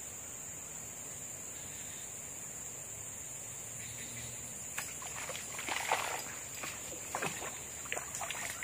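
A hooked bujuk snakehead splashing and thrashing at the water surface as it is pulled in on a fishing rod. The splashes come in a run of sharp, irregular bursts starting a little past halfway, over a steady high-pitched insect drone.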